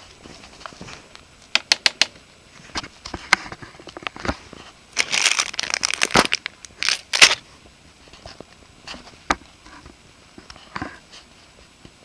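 Plastic candy bag crinkling as it is handled, loudest in a dense burst about five to six and a half seconds in, with scattered clicks and taps before and after.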